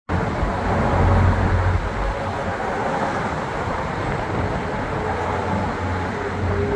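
Steady low vehicle rumble, heavier in the first two seconds.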